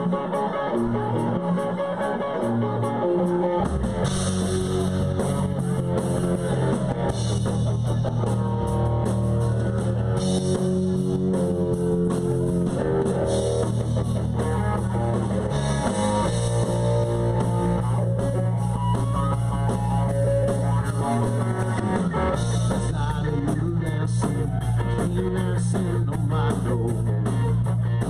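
Rock and roll music with guitar over bass and drums, no lead vocal prominent. The bass and drums come in fuller about four seconds in.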